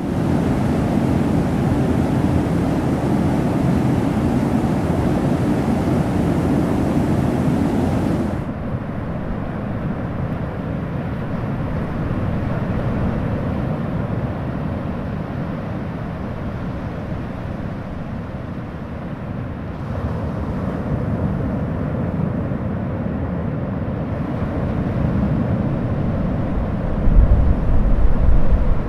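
Rushing water noise from a waterfall, which changes abruptly after about eight seconds to duller sea surf and wind, with a low wind rumble on the microphone near the end.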